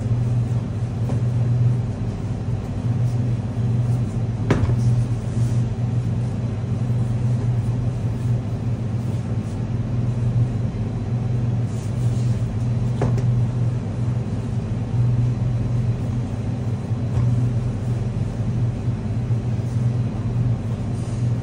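Steady low machine hum of kitchen equipment running, with two light knocks, one about four seconds in and one about thirteen seconds in.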